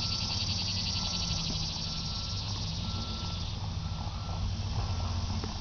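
An electronic beep repeating about once a second, over a steady low rumble and hiss.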